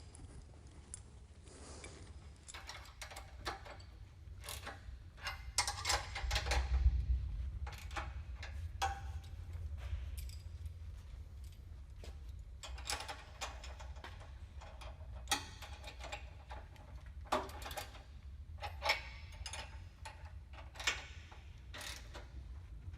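Ratchet wrench clicking in runs as bolts are tightened on a planter row unit's steel actuator bracket, with occasional clinks of metal.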